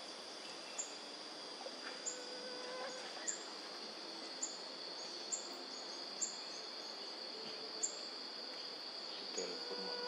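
Forest ambience: a steady high-pitched insect drone, with short high chips about once a second and a faint low whistle about two to three seconds in.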